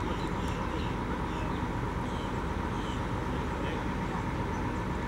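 Tour bus engine running steadily, a constant low rumble with a steady hum over it. A few faint, short high chirps come through on top during the first three seconds.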